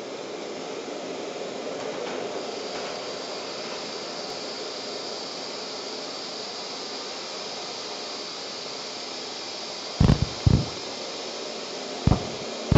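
A steady static-like noise hiss, with a brighter high hiss joining about two and a half seconds in. About ten seconds in come a few loud, low thumps.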